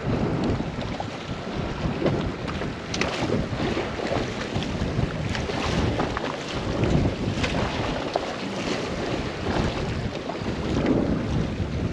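Wind buffeting the microphone over water sloshing against a boat's hull, with short splashes from a hooked tarpon thrashing at the surface beside the boat.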